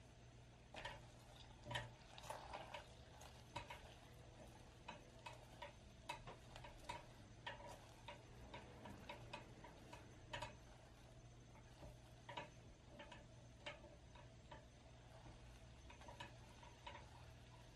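Faint, irregular clicking and ticking of sugar syrup bubbling in a stainless steel saucepan while a silicone spatula stirs it, starting about a second in. The syrup is at the pale-golden stage, cooking on low heat toward caramel.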